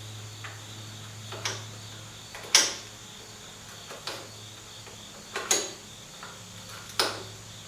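Sharp metallic clinks of hand tools on chassis fittings and nuts, about six irregular strikes with short ringing tails, the loudest about two and a half seconds in, over a steady low hum.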